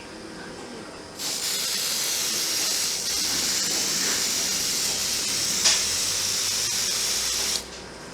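Aerosol smoke detector test spray hissing steadily for about six seconds, starting about a second in and cutting off near the end. It is sprayed into an oil mist detector head to simulate oil mist.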